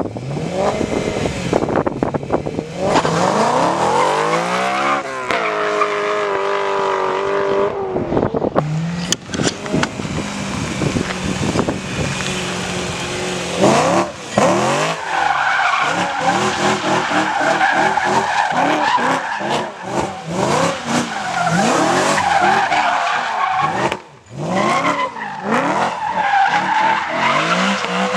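BMW E92 M3's V8 revving hard and rising and falling in pitch again and again, while its rear tyres spin and squeal in burnouts and donuts. The engine dips briefly twice, about halfway through and again near the end.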